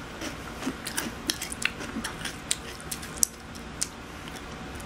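Crunchy Cheerios cereal being chewed: crisp irregular crunches and clicks that stop near the end.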